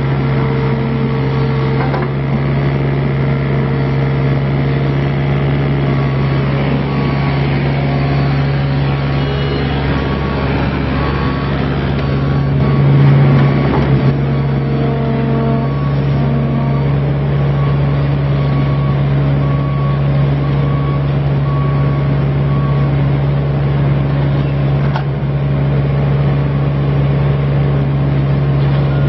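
2012 Bobcat 324 mini excavator's Kubota diesel engine running steadily, with a brief louder swell about thirteen seconds in.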